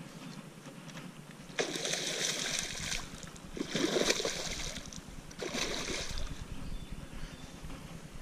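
Hooked northern snakehead thrashing at the surface of shallow creek water as it is reeled in: three bursts of splashing, the middle one the loudest.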